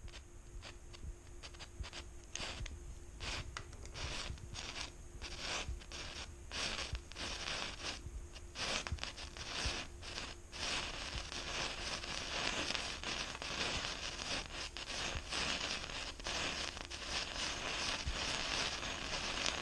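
Blaze of Glory indoor firework burning: it sputters and crackles in irregular pops at first, then from about halfway through settles into a steady fizzing hiss of sparks that grows louder.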